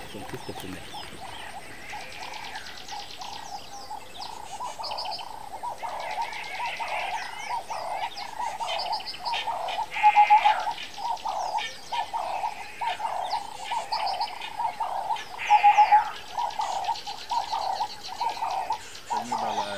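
Birds calling in dry savanna bush: a mid-pitched note repeated about twice a second, with higher chirps over it and two louder calls about ten and sixteen seconds in.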